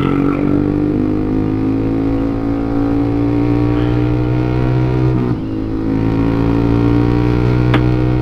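Motorcycle engine running steadily under way, holding an even pitch. It dips briefly about five seconds in, then picks up again, with a single sharp click near the end.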